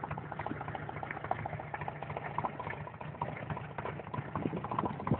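Apal off-road buggy's engine running low and steady, with a patter of small irregular ticks and clicks over it.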